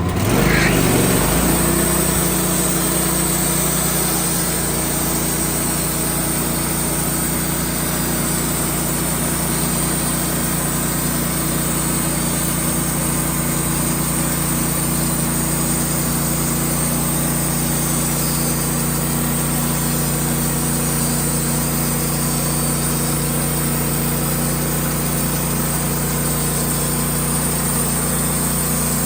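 Sawmill engine running steadily, with a brief louder surge in the first second or so before it settles.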